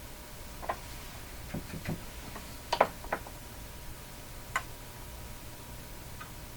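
Irregular small clicks and taps of tools and small parts being handled on a workbench, about half a dozen spread unevenly, the sharpest a little under three seconds in, over a faint steady hum.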